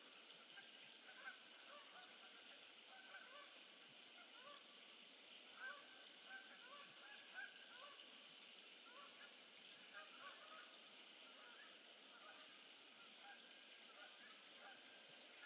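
A flock of geese honking: many short calls overlapping throughout, faint over a steady hiss.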